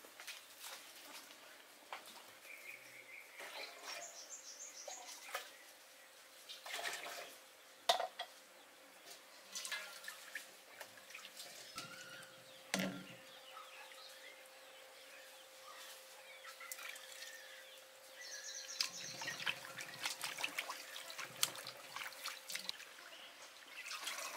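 Water splashing in a metal bowl as betel leaves are washed by hand, with water dripping and trickling off the leaves as they are lifted out.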